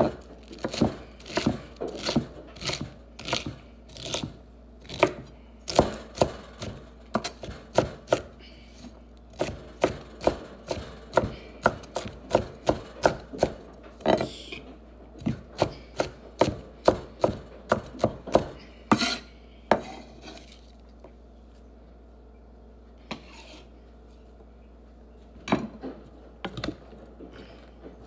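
Chef's knife chopping celery on a wooden cutting board: a steady run of sharp knocks, about two to three a second, stopping about twenty seconds in, with a few more knocks near the end.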